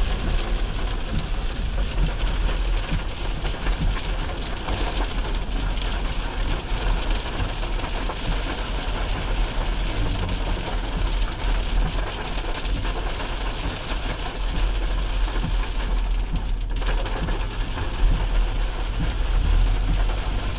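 Car driving through rain, heard from inside the cabin: a steady wash of rain and wet-road noise over a constant low engine and road rumble, with one brief bump near the end.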